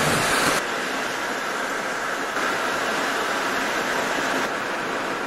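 Steady road and engine noise heard inside a moving vehicle on a wet highway. The noise shifts abruptly in tone about half a second in and again a couple of times.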